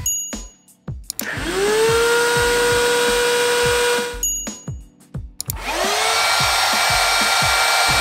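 Two handheld cordless car vacuum cleaners, a Tusa and then a 70mai, switched on one after the other. Each motor spins up with a rising whine and then runs steadily. The first cuts off abruptly a little past halfway, and the second starts soon after. Background music with a steady beat runs underneath.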